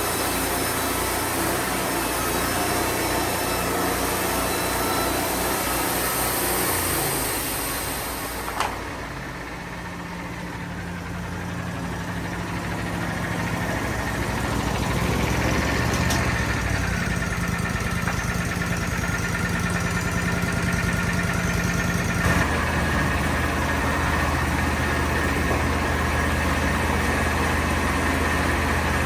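Engine of a Wood-Mizer band sawmill running. A high hiss ends with a click about nine seconds in, and the engine drops in level. It picks back up over the next few seconds and runs on steadily, changing tone once more near the last quarter.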